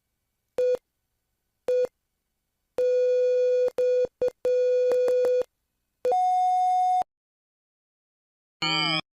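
Electronic signal beeps cut cleanly out of silence. Two short beeps are followed by a run of longer beeps at the same pitch. Then comes a single higher tone lasting about a second, and near the end a brief warbling, gliding tone.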